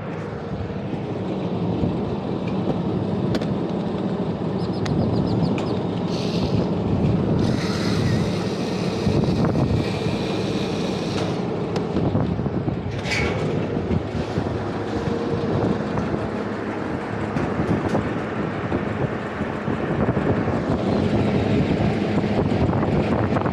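Steady drone of rooftop air-conditioning and refrigeration units running, with wind noise on the microphone and a louder gusty hiss for a few seconds in the middle.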